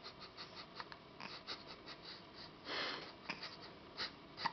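A baby's breathing and small snuffles, with soft clicks and rustles of handling; one louder breathy sound comes just before three seconds in.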